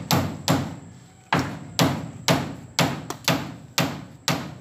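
Machete blows chopping into the soft, fibrous trunk of a papaya tree: about nine sharp, dull strikes at roughly two a second, with a short gap about a second in.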